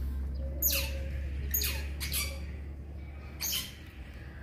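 Otter pup squeaking: several shrill calls, each sliding down in pitch.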